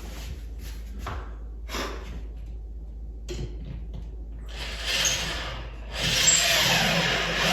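Clicks and rubbing as a bolt is fitted to the drill and set against the wall, then a power drill running briefly about five seconds in and starting again steadily about a second later, driving the TV-mount bolt into the wall stud.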